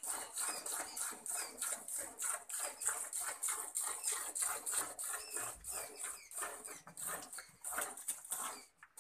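Jets of milk squirting into a steel pail as a cow is milked by hand, a rhythmic hiss of about three to four squirts a second into the foam.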